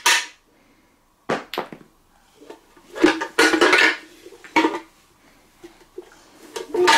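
A large hollow, shiny red ball being tapped and knocked by hand, giving a few separate hollow knocks with a short ringing tone, bunched together about three seconds in.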